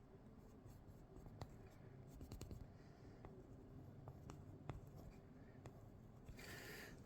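Coloured pencil strokes scratching faintly on paper, with scattered light ticks of the pencil tip and a slightly louder stretch of scribbling near the end.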